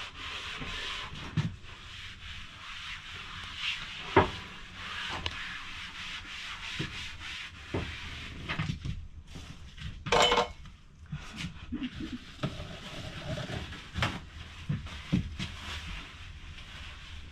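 Scrubbing and rubbing on the boat's cabin floorboards and bilge, with scattered wooden knocks and clatters as the boards are handled; the loudest knock comes about four seconds in and a short sharp sound about ten seconds in.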